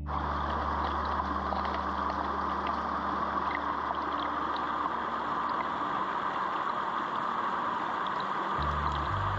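Small mountain stream rushing and splashing steadily over rocks, with low held background music notes beneath that change pitch near the end.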